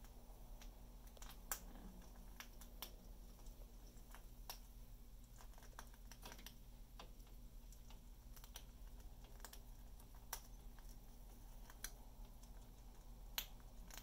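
Faint, sharp clicks from an Amazon parrot's beak, about ten of them at irregular intervals, over a quiet room hum.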